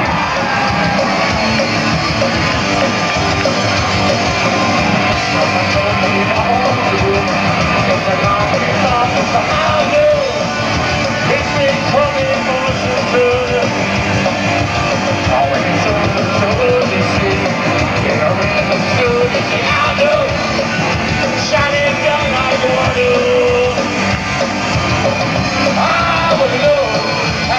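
Punk rock band playing live at a loud, steady level: electric guitars, bass and drums, with a singer's voice over them.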